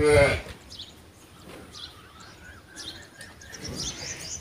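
A water buffalo gives one short call at the start, its pitch rising and then falling. After that, birds chirp faintly, ending in a quick run of high chirps.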